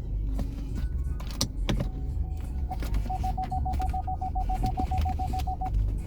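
A car's electronic warning chime beeping rapidly, about seven beeps a second at one steady pitch for a little over two seconds, starting about three seconds in, over a steady low rumble and a few clicks.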